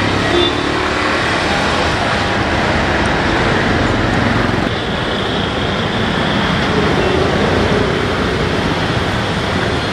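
Steady road traffic noise: a continuous wash of passing vehicles.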